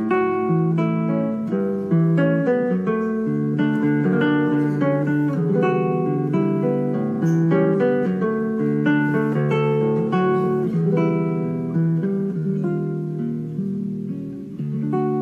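Background music on acoustic guitar: a steady run of plucked notes and strummed chords.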